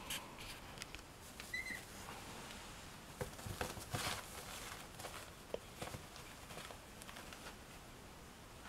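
A young chihuahua puppy's paws pattering and scratching on an absorbent puppy pad: soft, scattered taps, busiest a few seconds in, with a brief faint squeak about one and a half seconds in.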